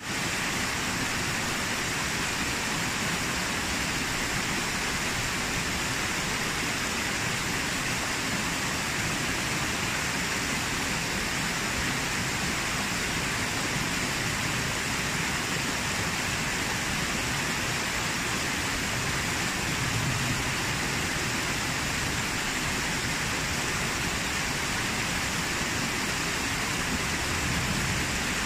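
A small waterfall cascading over rocks into a pool: a steady, even rush of falling water.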